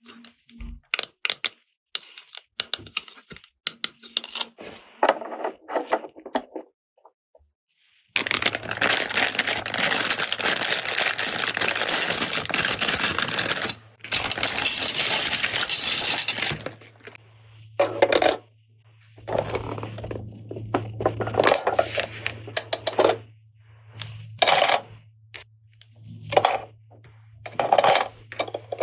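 Small hard plastic toy pieces being handled, clicking, tapping and rattling against each other, with a long stretch of dense rustling or hissing noise in the middle over a steady low hum.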